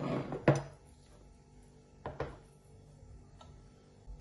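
Dishes being handled: a sharp knock about half a second in and two lighter knocks about two seconds in, as plates and bowls are moved on a table.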